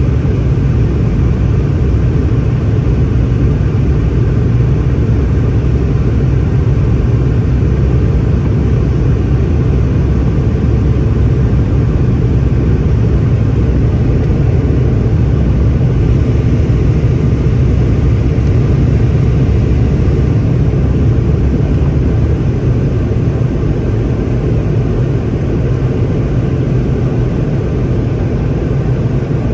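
Boeing 717 airliner's rear-mounted Rolls-Royce BR715 turbofan engines running steadily: a constant low rumble with a faint high whine above it, not rising or falling.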